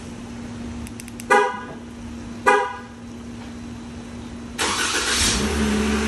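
2021 Jeep Wrangler's horn gives two short chirps about a second apart, then about four and a half seconds in the engine starts with a sudden loud burst and settles into a steady idle: the remote start working with a newly programmed smart key.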